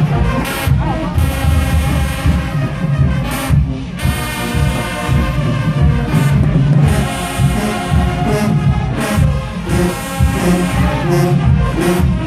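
A large marching band playing loudly: brass section with trombones and trumpets over a heavy drumline, with cymbal crashes.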